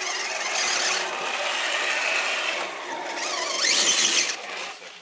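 Electric motor and gear drivetrain of a radio-controlled scale crawler whining under throttle as it climbs over rocks. The whine rises and falls in pitch and is loudest about four seconds in.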